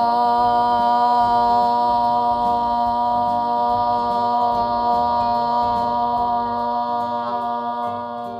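Three voices holding one long sustained 'ah' together on a single steady pitch, a breath-support and projection warm-up; the note tapers off near the end.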